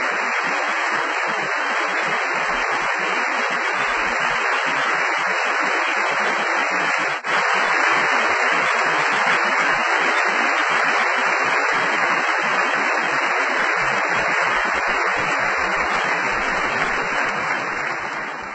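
Audience applauding steadily, heard as a dense, hissy wash. There is a brief dropout about seven seconds in, and the applause fades out near the end.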